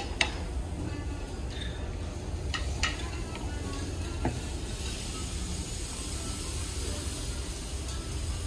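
Food sizzling on a hot plate, a steady hiss, with a few light clinks of tableware near the start and about three seconds in.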